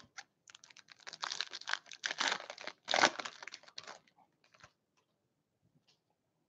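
Foil wrapper of an O-Pee-Chee Platinum hockey card pack being torn open and crinkled by hand, a run of crackling from about one to four seconds in, loudest near three seconds.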